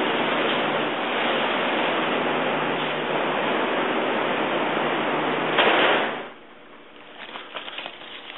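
A steady rushing hiss that swells briefly and then cuts off about six seconds in. It is followed by faint, scattered clinks of thin metal discs being picked through in a cardboard box.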